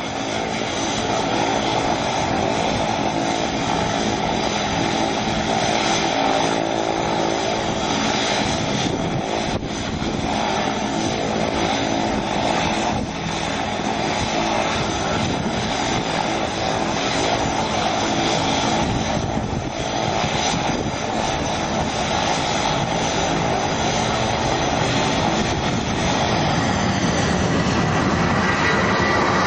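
Boeing 757's twin jet engines running at high power while the jet holds on the runway, then the short-field takeoff roll, with the jet rotating nose-up near the end. A loud, steady engine noise with many steady tones, growing a little louder in the last few seconds.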